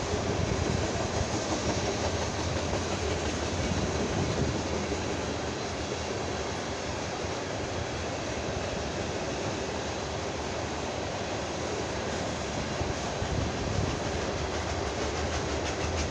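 Norfolk Southern ethanol unit train's tank cars rolling steadily past over a road crossing: the continuous sound of freight car wheels running on the rails.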